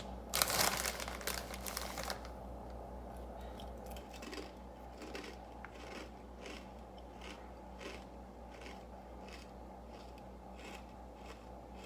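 Plastic chip bag crinkling for the first two seconds, then a run of soft, regular crunches, about two a second: corn chips (BBQ Fritos) being chewed.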